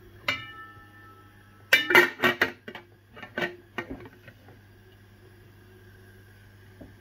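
Aluminium stockpot lid clanging against the pot: one ringing clang, then a burst of clattering knocks about two seconds in and a few more around three and a half to four seconds, as the lid is set on.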